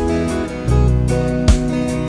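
Gentle background music led by acoustic guitar, with a steady beat striking about every second and a half.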